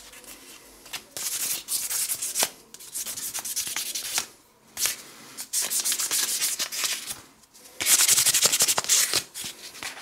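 A G10 knife scale being hand-sanded on fine-grit sandpaper: quick back-and-forth rubbing strokes in runs of a second or two, with brief pauses.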